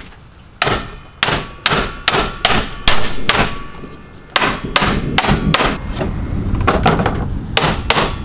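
Hammer blows on a wooden Langstroth hive body, knocking its box-jointed sides together: about two to three sharp strikes a second, with a short pause about four seconds in.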